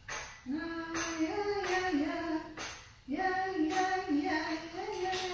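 Golden retriever vocalizing in drawn-out, howl-like whines, two long runs of held notes that step up and down in pitch, with a short break about three seconds in.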